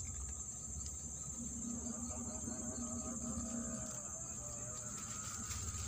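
Insects chirring in one steady, unbroken high-pitched drone.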